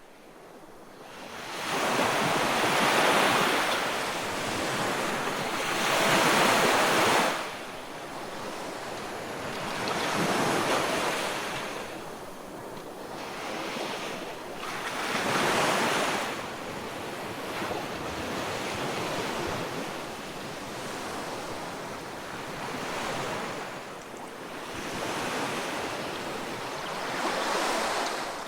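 Ocean waves surging and washing in, one swell after another every few seconds.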